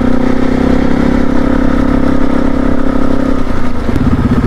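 Dual-sport motorcycle engine running at a steady pitch while riding. About three and a half seconds in, the note drops a little and turns into a lower, pulsing beat.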